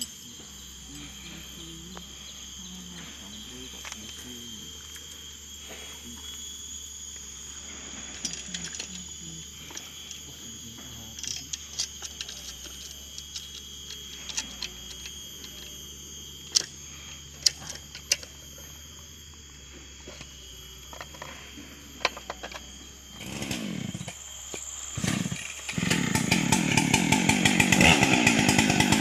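Insects keep up a steady high buzz while the chain is fitted onto the bar, with scattered light metallic clicks and knocks. About three-quarters of the way in, the Husqvarna 395XP's two-stroke engine gives two short bursts as it is pull-started, then catches and runs loudly and steadily.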